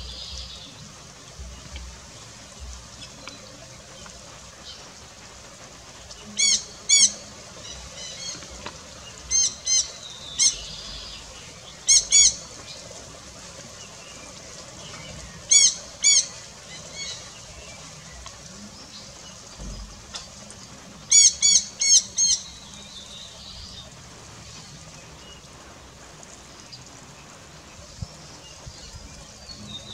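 Jandaya parakeets giving loud, high, harsh screeching calls in short bouts of two to four, five times, with quieter background between.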